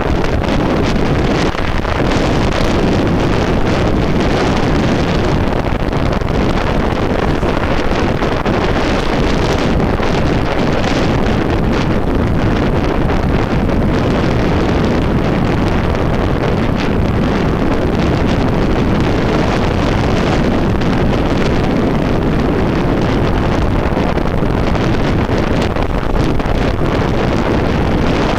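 Wind buffeting the microphone of a handlebar-mounted compact camera on a bicycle descending into a headwind: a loud, steady rush of wind noise, with frequent small knocks through it.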